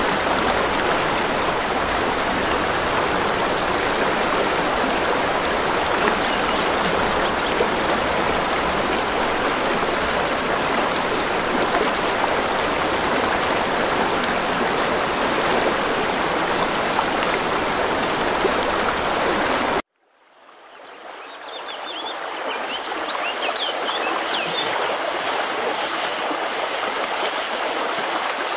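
Steady rush of flowing river water, with a faint, evenly repeated high chirping in the first half. About twenty seconds in the sound cuts off abruptly, then fades back in as quieter outdoor ambience with birds chirping.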